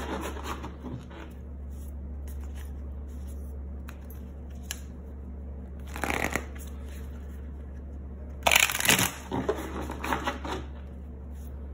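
A deck of tarot cards being shuffled by hand in short rustling bursts, once about six seconds in and again for about two seconds near the end, over a steady low hum.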